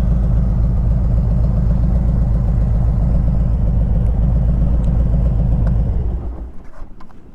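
Harley-Davidson Ultra Limited V-twin idling with a steady low beat, then switched off about six seconds in. A couple of small clicks follow near the end.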